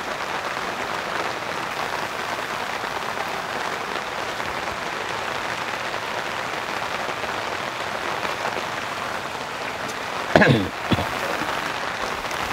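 Steady rain, an even hiss. About ten seconds in, a brief voice-like sound sweeps down steeply in pitch.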